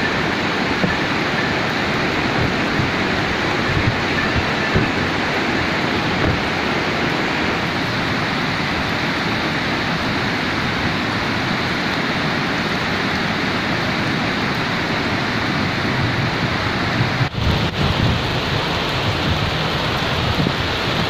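Heavy rain falling, a steady even hiss, with a brief dropout about seventeen seconds in.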